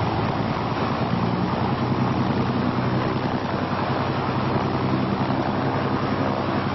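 Lake LA-4 amphibian on an air cushion landing system running over grass: a steady rush of engine and fan-driven air with a low, even engine hum underneath.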